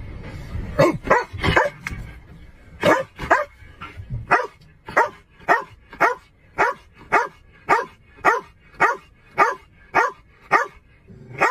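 A police K9 dog barking: a few scattered barks, then a steady run of about two barks a second.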